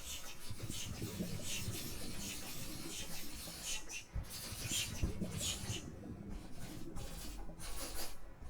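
Rubbing and scratching close to the microphone in short, irregular strokes, about two a second, with a couple of soft low thumps near the middle.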